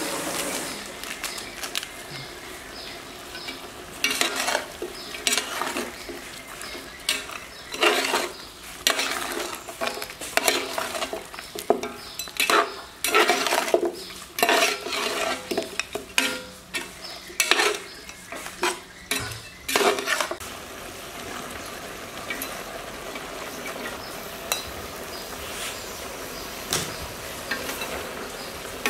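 A metal spoon stirring meat in a large aluminium pot, scraping and knocking against the pot in quick, irregular strokes, with food sizzling underneath. The stirring stops about two-thirds of the way through, leaving only the steady sizzle.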